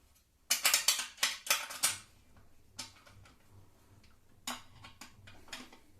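Small metal parts of a router table clattering and clicking as they are handled and adjusted by hand: a quick run of rattles in the first couple of seconds, then a few single clicks.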